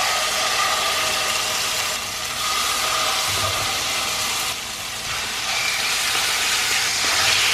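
Chicken thighs sizzling in hot olive oil in a frying pan as they are laid in piece by piece to sear. The steady sizzle grows a little louder near the end as more pieces go in.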